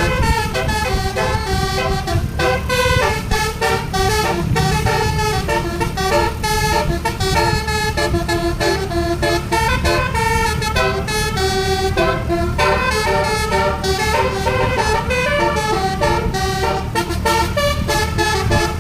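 Bus telolet (basuri) multi-tone musical air horn playing a tune of short notes that change several times a second, over the low rumble of the bus's engine.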